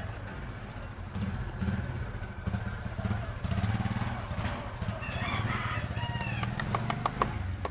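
A small engine runs steadily in the background with a low, uneven rumble. A few short chirps come about two-thirds of the way in, and a few light clicks near the end.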